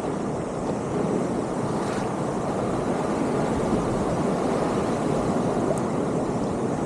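A steady rush of wind and sea water at sea, with no distinct events.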